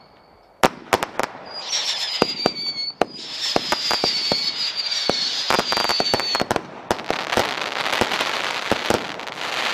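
Consumer fireworks cake firing: a sharp bang about half a second in, then a run of pops and bangs under high whistles that fall slowly in pitch, giving way from about seven seconds in to a dense, continuous crackle.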